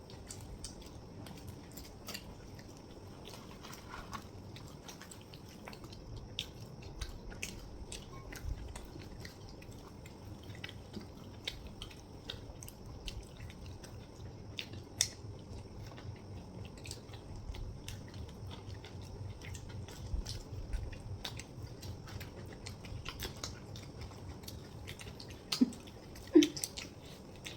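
People chewing and biting through chhole bhature (fried bread with chickpea curry), with many small wet mouth clicks. A few louder short knocks come near the end.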